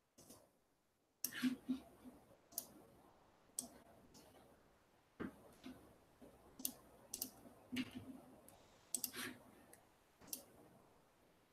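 Faint scattered clicks and light taps, about a dozen at irregular intervals.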